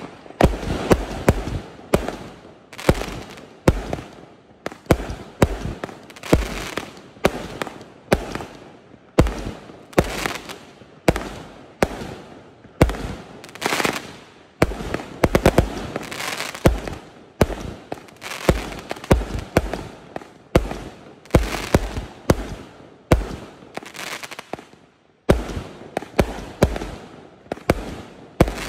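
A 0.8-inch, 368-shot fireworks cake firing shot after shot: sharp launch bangs about one to two a second, each followed by a short trailing hiss of bursting stars.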